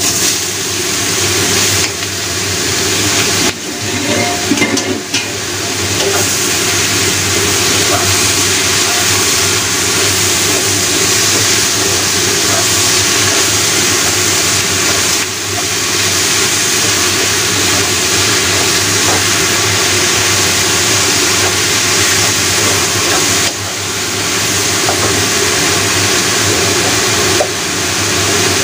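Sliced shiitake mushrooms, shallots and garlic sizzling in hot oil in a stainless wok: a steady frying hiss, stirred with a wooden spatula, with a few light knocks about four seconds in.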